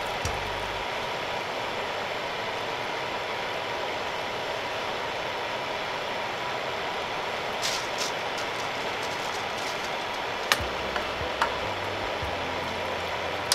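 Pollock skin deep-frying in hot oil, a steady sizzle, with a few sharp clicks of utensils against the pan in the second half.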